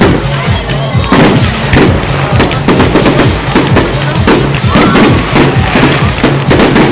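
Fireworks bursting in a rapid string of bangs and crackles, several a second, over loud music.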